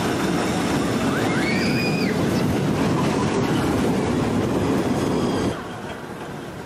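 Small roller coaster train running on its steel track, a loud steady rumble and rattle of the wheels. A brief high squeal rises and falls about one and a half to two seconds in, and the rumble drops away suddenly about five and a half seconds in.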